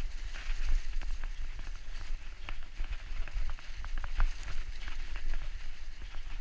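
Mountain bike rolling fast down a bumpy grass trail: the bike clatters with many irregular clicks and knocks as it hits the bumps, over a steady low rumble of wind on the action-camera microphone.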